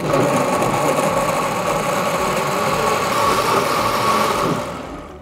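Countertop blender motor running at high speed, blending steamed carrots and hot liquid into soup: it starts abruptly with a steady whine and winds down near the end.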